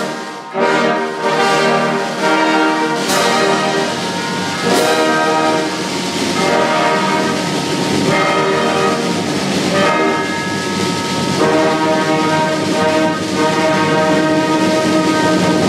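Symphony orchestra playing loudly, the brass section's held chords prominent, with a few sharp percussion hits in the first five seconds.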